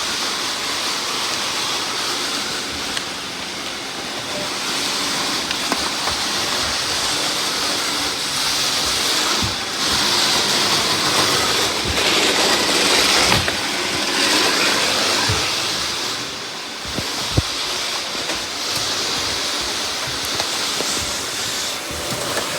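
Robot vacuums running, a steady high whirring hiss of their suction motors and brushes that swells and eases over several seconds, with a few sharp clicks along the way.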